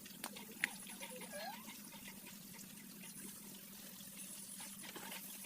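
Faint trickling water, with a few light clicks in the first second.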